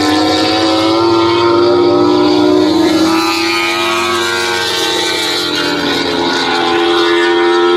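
MotoGP racing motorcycle's 1000 cc four-cylinder engine at high revs on the circuit. The engine note holds high, drops away between about three and five seconds in, then rises again near the end.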